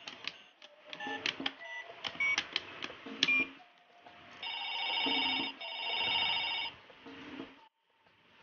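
Plastic buttons on a toddler's electronic activity table clicked several times, each with a short electronic beep, then the toy plays a trilling telephone-style ring twice, about a second each.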